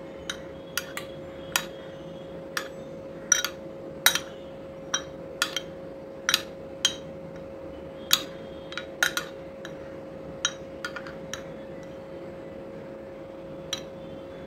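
Steel spoon clinking against a glass bowl while a potato ball is turned in batter slurry: a couple of dozen light, sharp clinks at irregular spacing. A faint steady hum runs underneath.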